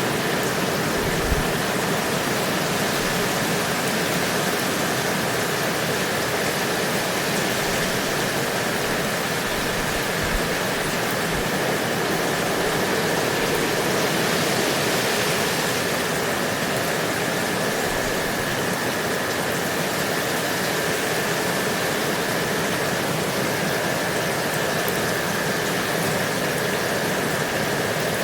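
Steady rain falling, an even hiss with no pauses, with a faint steady high tone running through it.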